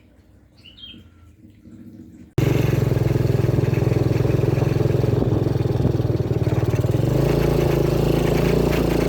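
Faint background for about two seconds, with one brief high chirp. Then a sudden cut to a motorcycle engine running loud and steady, the bike being ridden.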